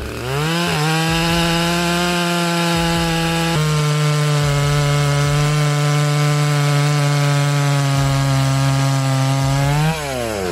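Holzforma G888 122 cc two-stroke chainsaw cutting wood at full throttle. The engine revs up about half a second in, holds a steady high pitch through the cut, and winds down near the end.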